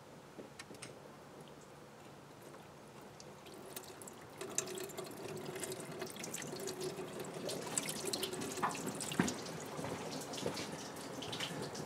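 Water from a 2003 Kia Sorento's sunroof drain running out of the rubber drain fitting and off the body panel, splattering and dripping below. It starts faint and builds into a steady trickle about four seconds in. The drain is clear and draining like it should.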